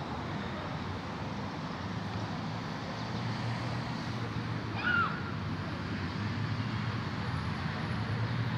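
Outdoor city ambience: a steady hum of road traffic, with one brief high chirp about five seconds in.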